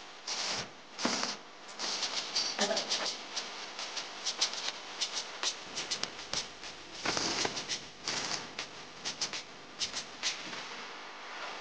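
Light steel chain links clinking and rattling in irregular bursts as the chain is handled and worked with pliers.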